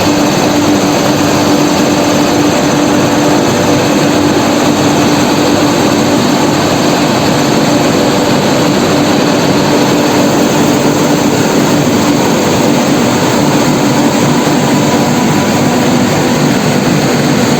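WAP-7 electric locomotive standing with its cooling blowers running: a steady rushing noise with a low, even hum.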